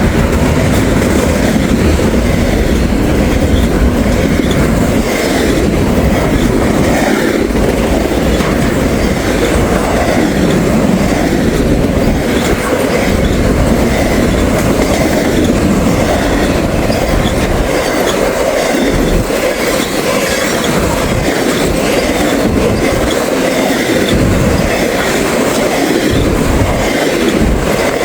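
Intermodal freight train's container cars passing at speed: a loud, steady rolling noise of steel wheels on the rails with faint regular knocks.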